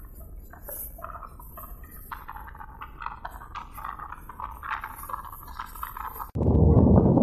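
Faint, irregular light clinking and rattling, then about six seconds in an abrupt switch to a loud, low rumble of a fast passenger boat's engine and rushing water.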